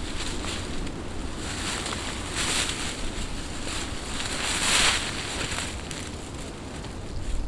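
Wind rumbling on the microphone, with swells of rustling from the poncho and dry leaf litter as they are handled, strongest about two and a half and five seconds in.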